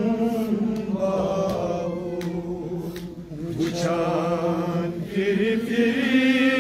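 A man's voice chanting a Kashmiri noha lament, holding long notes that waver up and down in pitch.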